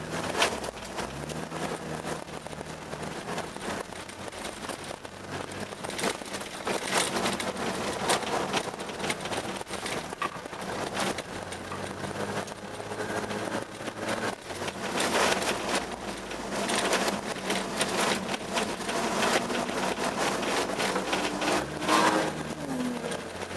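Car engine heard from inside the cabin while driving on a snowy ice track, its pitch rising and falling with the throttle, under a dense rattling clatter of tyres and snow against the car.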